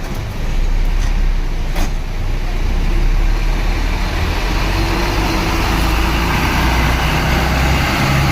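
Large tour bus engine running with a steady low rumble. There is a short sharp click about two seconds in.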